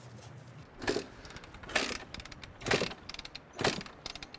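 Honda CR125 two-stroke dirt bike being kick-started: four kicks about a second apart, the engine turning over without catching.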